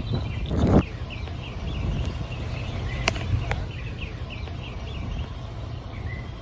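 A bird calling in a quick run of short, repeated chirps over a steady low rumble. A brief louder whoosh comes in the first second, and two sharp clicks come about three seconds in.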